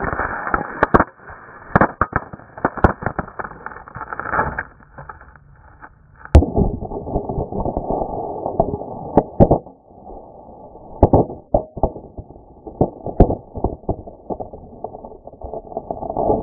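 Bricks and concrete blocks being smashed with a heavy tool: sharp cracks and knocks with crunching, scattering debris. About six seconds in comes the loudest, sharpest hit as a flying piece of brick strikes the camera, after which the sound is duller, with irregular knocks and scraping.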